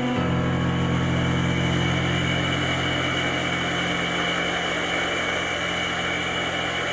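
Electronic music from a piano-and-electronics set: a sustained low drone under a steady wash of noise, with the piano notes dying away just after the start.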